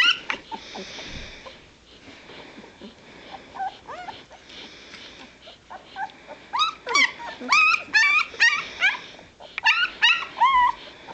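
Newborn White Shepherd (Berger Blanc Suisse) puppies whimpering and squealing. A few scattered calls come early, then from about halfway through a quick run of high squeals that rise and fall in pitch, two or three a second.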